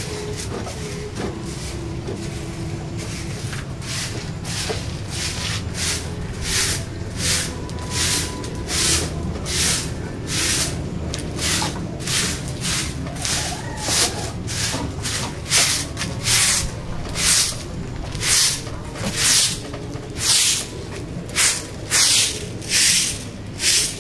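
Broom sweeping a concrete and dirt floor in short, regular strokes, about three every two seconds, growing louder toward the end.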